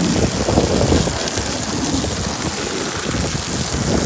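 Wind buffeting the microphone: a steady hiss with irregular gusts of low rumble.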